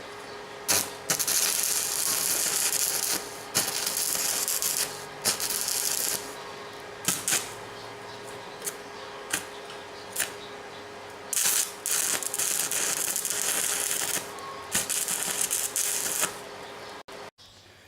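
Arc welding chain-link fence wire to a steel frame: a series of short crackling, hissing welds, each lasting from under a second to about two seconds, with brief pauses between, over a steady hum.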